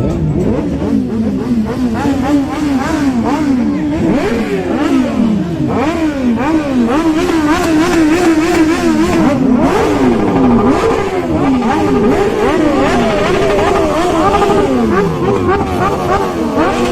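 Several superbike engines revving together, with repeated quick throttle blips that rise and fall in pitch and overlap one another.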